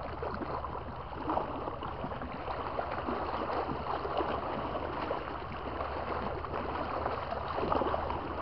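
Small waves lapping and splashing irregularly against the side of a boat, over a steady low hum.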